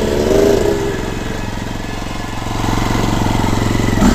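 Enduro motorcycle engine idling close to the microphone, a steady low running note, a little louder from about three seconds in.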